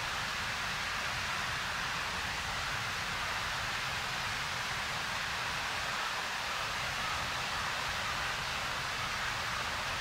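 Ryumon Falls pouring steadily into its plunge pool: an even, unbroken rush of falling water.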